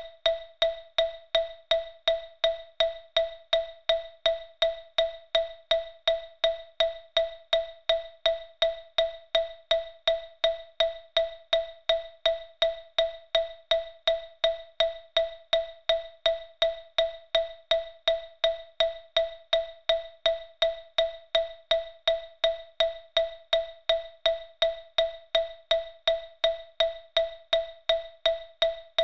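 A single xylophone note, E5, struck over and over as a metronome beat at 165 beats per minute, a little under three even strokes a second. Each stroke rings briefly and dies away before the next.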